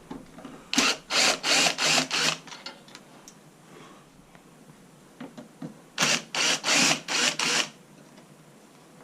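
Hand tool working a fastener during a headlight swap, in two runs of about five short rasping strokes each, a few seconds apart, with light clicks and handling noise between.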